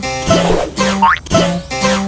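Playful cartoon music: a springy rising boing repeats about twice a second over a plucked-string accompaniment.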